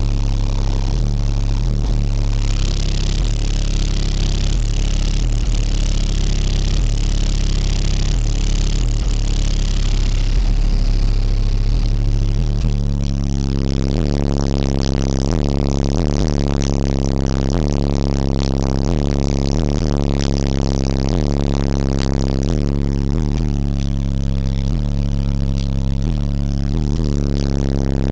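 A parked car's steady low drone, a deep hum with even overtones that holds unchanged throughout. About halfway through it becomes clearer and fuller, as heard from inside the cabin.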